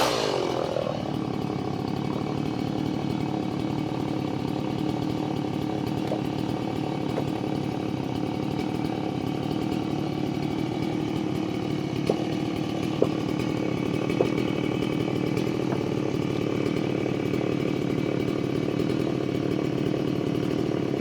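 Small engine running steadily at a constant speed, with a few faint clicks about halfway through.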